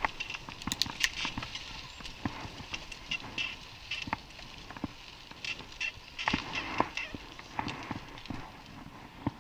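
A horse's hooves clip-clopping unevenly, with sharp knocks and short high squeaks in between.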